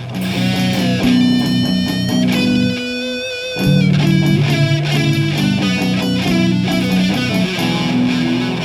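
Background music: electric guitar with bass, sustained chords and notes changing about every second.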